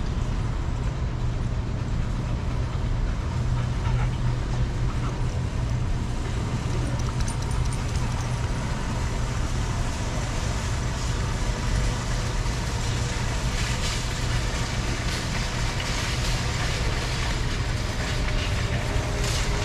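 Steady low rumble with an even hiss over it, the outdoor background noise of a store parking lot; faint whistling tones come in near the end.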